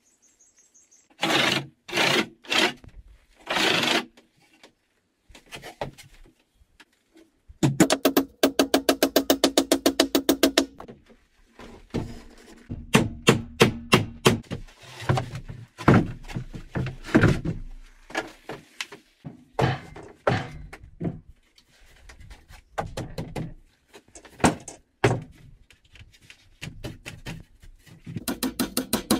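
Hand woodworking in a small plank-walled room: a handsaw cutting a board in several strokes, then runs of rapid knocking and separate sharp strikes of a hammer on wood.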